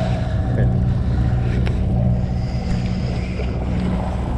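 Sportfishing boat's engine running steadily, a low, even drone.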